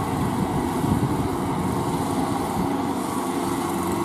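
Kubota L4508VN tractor's diesel engine running steadily as it pulls a rotary tiller on cage wheels through a flooded paddy.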